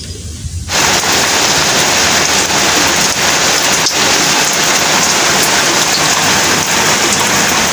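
Heavy rain falling steadily onto a wet concrete yard. It starts suddenly just under a second in.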